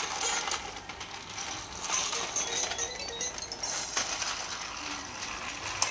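VTech Toot-Toot Drivers train station toy playing an electronic tune in short high notes, over repeated clicking and clattering of its plastic parts.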